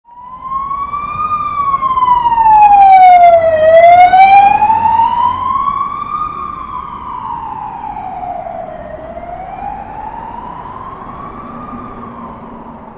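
Police car siren in a slow wail, its pitch rising and falling in long sweeps of about five seconds each. It grows loud over the first few seconds and then fades as the vehicle passes, with low street noise underneath.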